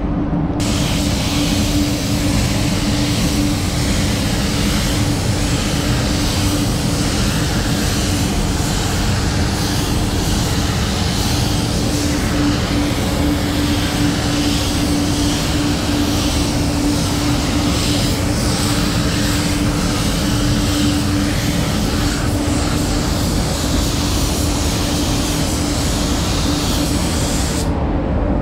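Compressed air hissing steadily from a paint spray gun while it sprays, over a constant rumble and low hum. The hiss comes in about half a second in and cuts off briefly near the end as the trigger is let go.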